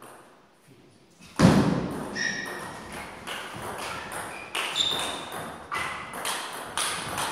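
Table tennis rally: the ball clicks sharply off the table and the rackets, the strokes coming in pairs about once a second, some with a short ringing ping. One heavier thump about a second in opens the play.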